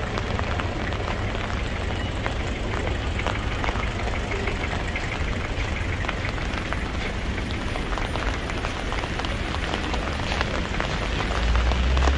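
Heavy rain falling steadily, a dense patter of drops hitting the ground and surfaces close by. A low rumble builds near the end.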